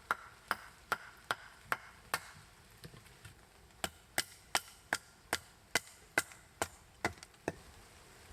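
Wood being chopped with quick, evenly spaced strikes, about two and a half a second, in two runs with a short break between them.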